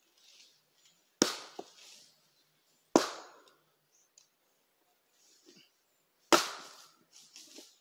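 Firewood being split by hand: three sharp chopping blows into wood, the first two close together and the third after a longer pause, with a few faint knocks near the end.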